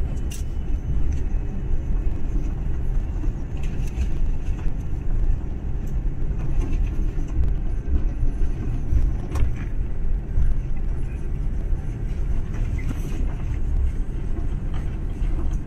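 Cabin noise inside an Airbus A330-300 taxiing: a steady low rumble from its Rolls-Royce Trent 700 engines at taxi power and the aircraft rolling over the apron, with a few faint clicks and rattles.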